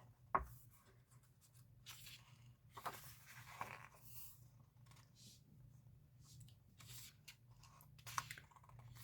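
Faint paper rustling and soft clicks as the pages of an album photo book are handled and turned, with one sharper click about half a second in.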